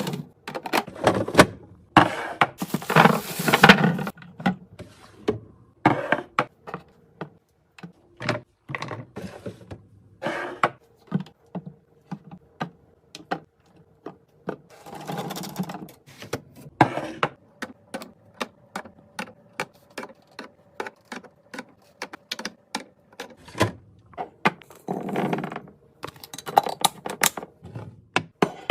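Containers, jars and packaging being set down and handled while a refrigerator is restocked: many sharp taps, clicks and knocks, with a few longer rustles. A faint steady hum runs through the middle.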